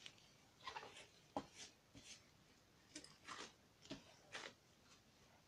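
Quiet, irregular squishes and crackles of a snow slime being kneaded and pressed against a table by a rubber-gloved hand, with one sharper click about a second and a half in.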